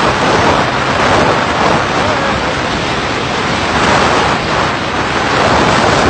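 Loud, steady wind rush buffeting the microphone of a camera moving at road speed.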